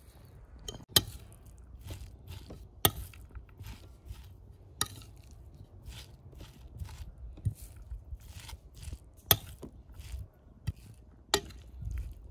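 Metal spoon mixing raw minced meat with chopped onion and herbs on a plate: many soft wet strokes, and a sharp clink of the spoon against the plate about every two seconds.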